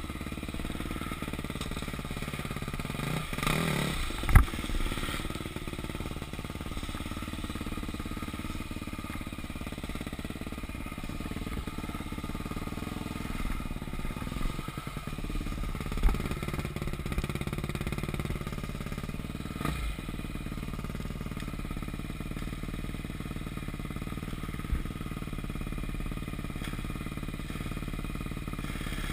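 Enduro motorcycle engine running at low, unevenly varying revs as the bike is ridden slowly along a rough trail. A sharp knock sounds about four seconds in, with a few lighter knocks later.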